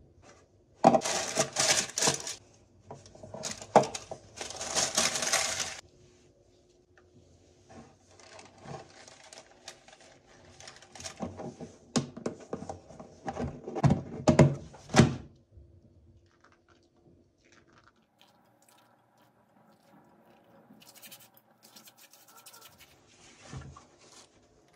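Kitchen handling sounds: two loud rustling, crinkling bursts near the start, then a series of knocks and clicks as the lid of a plastic food storage container is set on and pressed shut, then only faint scratchy handling.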